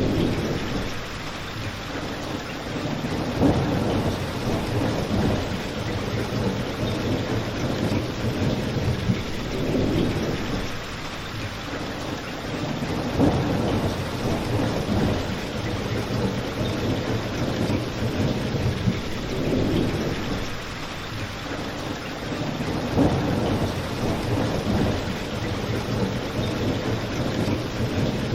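Steady rain falling outside, with low rolling rumbles swelling and fading every few seconds and an occasional sharp crackle from a fireplace.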